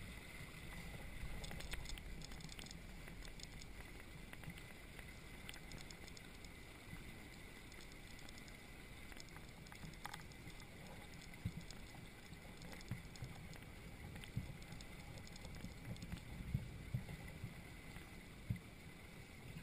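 Faint, steady low rumble of water moving around a small Hobie Cat catamaran's hulls, with a few light knocks in the second half.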